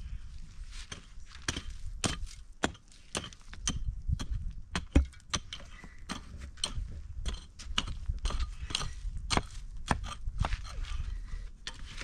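A short-handled hoe chopping into dry, stony soil, digging out earth beside a cinder-block footing. Sharp strikes come at about two a second.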